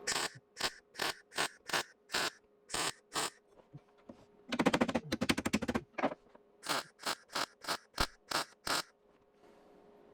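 Welder tacking sheet metal on a car's tail panel: a run of short crackling bursts, each a fraction of a second, with one longer crackling run about halfway through. The bursts stop about a second before the end, leaving a faint steady hum.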